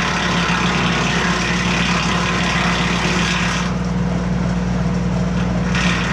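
Tractor engine driving a Titan BX42S PTO wood chipper, with a steady low hum and the chipper shredding apple branches. The harsher grinding eases off a little before four seconds in and picks up again near the end.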